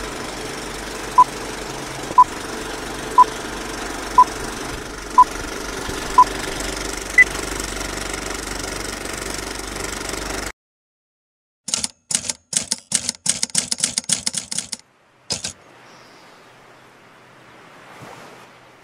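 Old film projector running with a steady clatter and hum, with countdown beeps once a second: six at one pitch, then a seventh higher beep. About ten seconds in it cuts off suddenly; a quick run of sharp clicks like typewriter keys follows for about four seconds, then faint wind noise.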